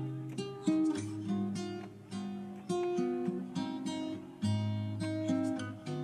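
Background music on acoustic guitar: plucked notes and strummed chords over sustained low notes.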